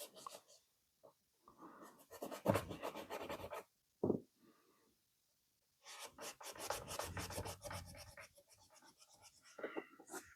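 Rag wiping and rubbing a small metal pipe wrench after spraying it, in two spells of quick back-and-forth scraping strokes.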